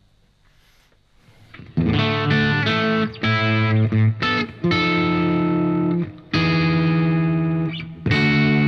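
Electric guitar played through a Scarlet Vibe pedal and a Diezel Schmidt amp. The chords start about two seconds in, each held for a second or so with short breaks between them.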